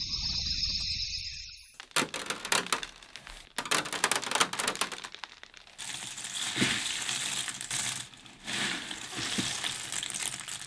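A dense run of irregular crackling, crinkling clicks and crunches, with noisy swells between them. In the first two seconds a high hiss and a low rumble fade out before the crackling starts.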